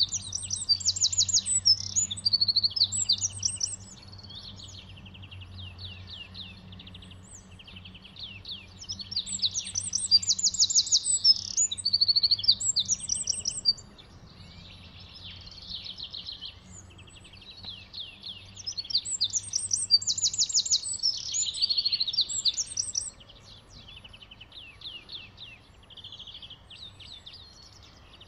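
Eurasian wren singing: three loud bouts of fast, high trills and rattles, each about four to five seconds long, with fainter birdsong between them.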